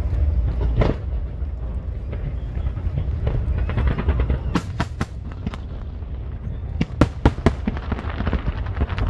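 Fireworks bursting overhead: a quick cluster of sharp cracks about halfway through, then a louder cluster of cracks about seven seconds in, over a steady low rumble.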